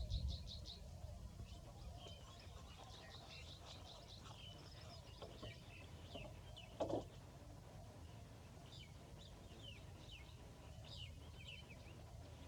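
Small birds chirping. Their calls come as many short notes, with a fast trill in the first second. Under them runs a steady low rumble, and a single brief, louder sound comes about seven seconds in.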